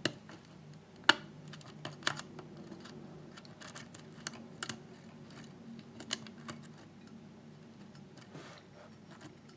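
Lock pick working the pin stacks inside a pin-tumbler lock cylinder held under tension: irregular light clicks and taps as the pins are lifted, the loudest about a second in.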